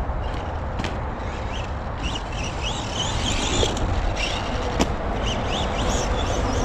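Electric 1/10-scale RC monster truck being driven: its motor whines up in short rising bursts as the throttle is blipped, over a steady rushing noise, with a couple of sharp knocks.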